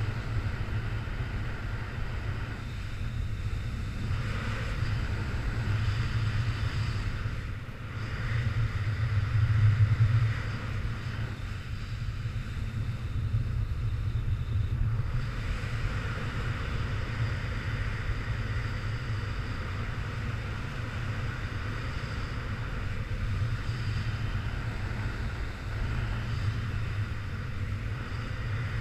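Wind rushing over the microphone during a paraglider flight: a steady low buffeting rumble with a fainter hiss of airflow, briefly stronger about ten seconds in.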